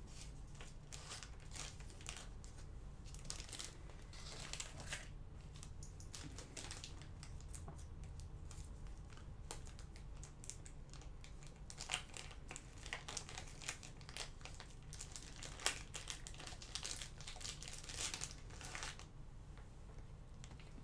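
Faint, irregular crinkling and rustling of something being handled, with a few sharper clicks around the middle and near the end, over a low steady hum.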